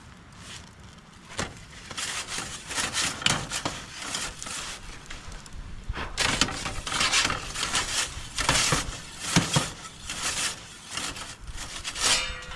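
Metal pizza peel scraping and knocking against the stone floor and steel rim of a charcoal pizza oven as pizzas are slid in and pulled out, in a series of irregular scrapes and clatters. Near the end comes a quick rattling scrape as the peel is pulled out from under a pizza.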